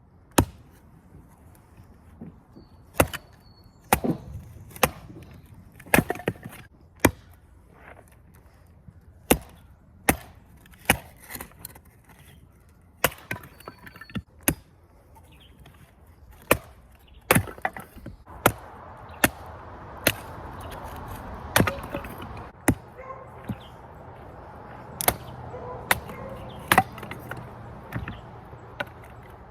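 Repeated sharp chopping strikes, irregularly spaced at roughly one a second, with a steady rushing noise growing beneath them from about 18 seconds in.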